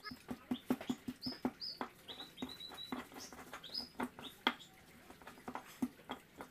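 Stone pestle knocking and grinding in a stone mortar (Indonesian cobek and ulekan), crushing chilies and shallots in a quick, uneven run of knocks, a few a second, the loudest about four and a half seconds in. Small birds chirp in short high notes in the background.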